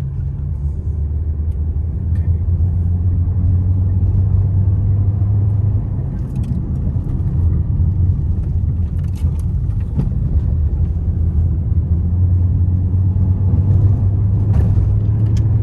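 Steady low rumble of a 2022 Honda Civic on the move, road and wind noise, swelling slightly in level, with a few faint ticks.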